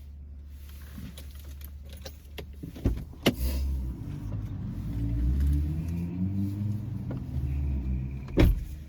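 Low rumble of a car that swells in the middle, with sharp knocks about three seconds in and a louder one near the end.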